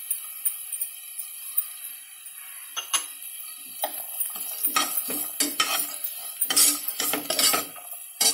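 Steel spoon scraping and knocking against a pan while chopped vegetables are stirred, a string of strokes starting about three seconds in and loudest near the end.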